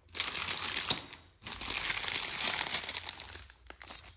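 Gold metallised-film flow-wrapped packets crinkling in two spells: one about a second long, then a longer one of about two seconds starting about a second and a half in.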